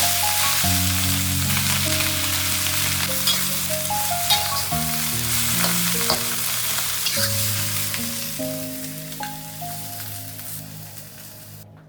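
Food sizzling and frying in a hot pan, with a few sharp clicks of stirring, over background music of slow held notes. The sizzle fades away toward the end.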